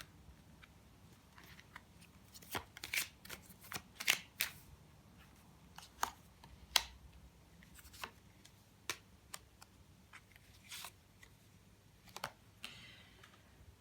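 Tarot cards being handled: irregular sharp snaps and flicks of card stock, with a short soft sliding rustle near the end.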